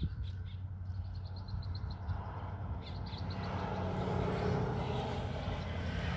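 Steady low hum, with a few quick series of short, high bird chirps over it in the first half.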